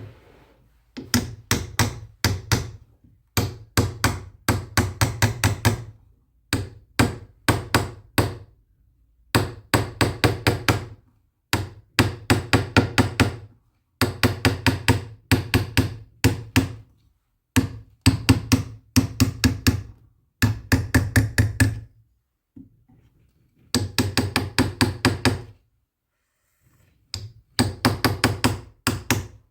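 Repeated hammer or mallet strikes on a hard surface, in quick runs of about five blows a second with short pauses between runs.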